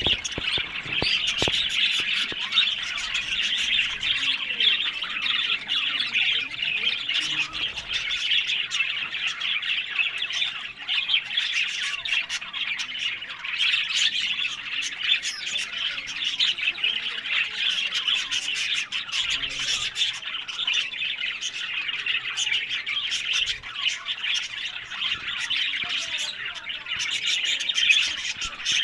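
Budgerigars chattering: a continuous stream of rapid, high-pitched chirps, warbles and squawks from a group of budgies.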